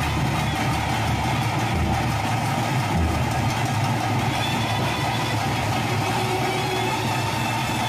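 Steady, dense ritual music with a continuous drone, the accompaniment to a Panjurli bhuta kola spirit-worship performance.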